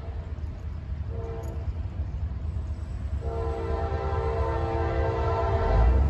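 Norfolk Southern diesel locomotive's air horn blowing for a grade crossing: a short blast about a second in, then a long blast from about three seconds in until near the end. Under it is the low rumble of the approaching locomotive, growing louder.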